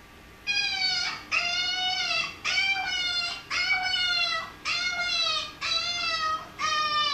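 Puppy crying: a run of about seven high, drawn-out whines, roughly one a second, each rising slightly and then falling in pitch.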